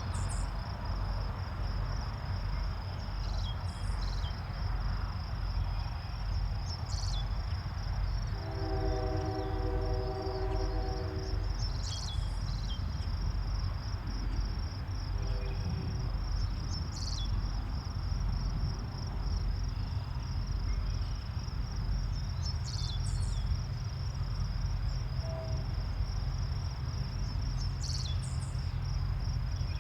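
Union Pacific freight train rolling past with a steady low rumble, under a constant high buzz of insects. A short chord of steady tones sounds for about three seconds, starting about nine seconds in, and brief high chirps come every few seconds.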